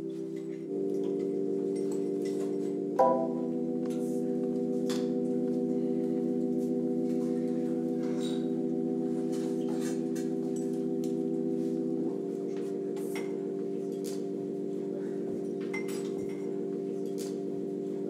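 Ambient music with sustained, bell-like held chords that change about a second in, again at three seconds with a bright struck chime, and again near twelve seconds, with light ticking clicks scattered over it.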